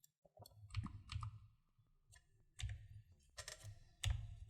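Computer keyboard keys and mouse buttons clicking in an irregular string of short taps while shortcuts are entered, with a quick cluster of clicks about three and a half seconds in.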